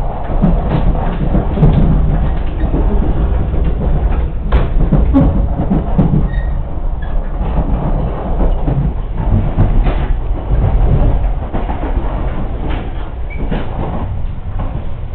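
Cabin noise inside a 300 series Shinkansen motor car as the train gathers speed after departure: a steady low rumble of wheels and traction motors, with occasional sharp clicks.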